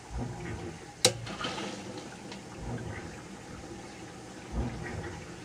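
Water rushing through a well system's pipes as it refills, sputtering with irregular low thumps as trapped air is pushed out of the lines. A single sharp click comes about a second in.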